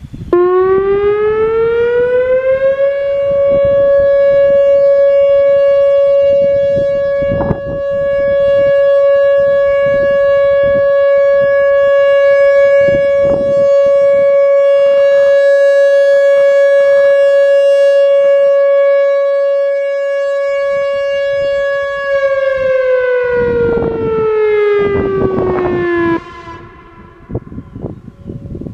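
Whelen WPS-3000 electronic outdoor warning siren sounding a short alert at 560 Hz. The tone glides up over the first few seconds, holds one steady pitch for about twenty seconds, then winds down and cuts off a few seconds before the end, with low thumps underneath.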